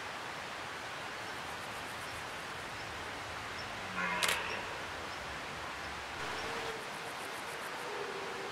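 Single click of a photographer's camera shutter about four seconds in, over a steady outdoor hiss.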